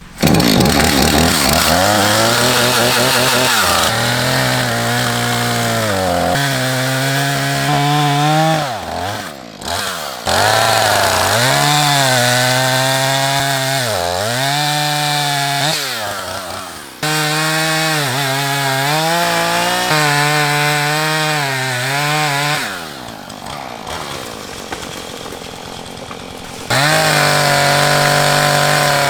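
Chainsaw running at high revs, cutting down a dead tree. Its pitch drops again and again as the chain bites into the wood, then climbs back.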